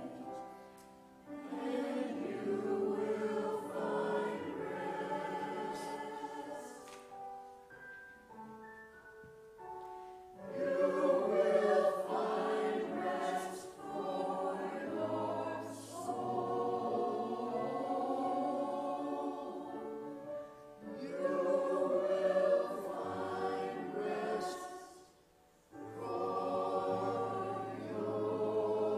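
Church choir singing an anthem in sustained, several-part harmony, in phrases broken by brief pauses.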